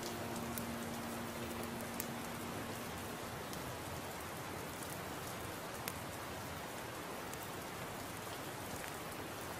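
Steady rain falling, an even hiss with occasional sharper drop taps. A held musical note fades out in the first few seconds.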